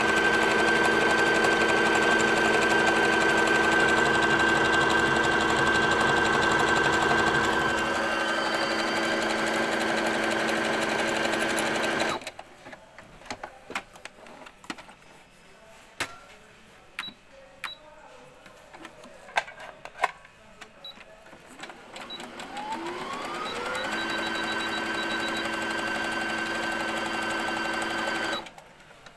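Brother computerized sewing machine sewing an overlock stitch at speed, its motor giving a steady whine with the needle's rapid rattle; it eases slightly about 8 s in and stops abruptly about 12 s in. After a pause with a few light clicks it runs up again, its whine rising, at about 23 s, sews steadily, and stops abruptly near the end.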